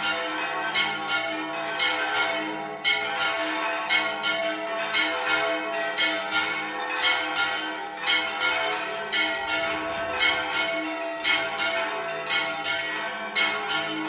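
Cathedral church bells pealing: several bells struck in quick, continuous succession, about two to three strokes a second, their tones ringing on and overlapping.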